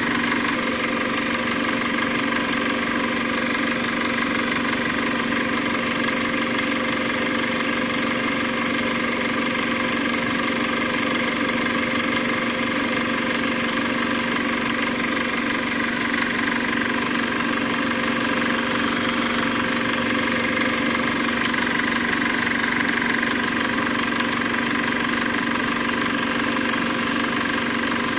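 A steady motor-like hum of several fixed tones over an even hiss, unchanging throughout.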